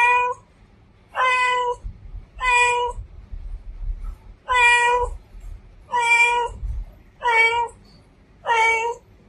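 A female domestic cat meowing repeatedly: about seven short meows, a little over a second apart, each held on one steady pitch.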